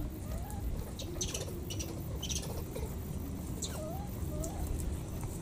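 Baby macaques giving a few short rising coo calls, with dry grass and leaf litter crackling under their feet in between.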